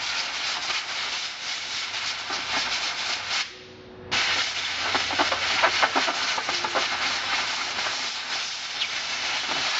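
Compressed-air blow gun hissing as it blows solvent off cleaned overdrive parts, in two long blasts with a brief break about three and a half seconds in.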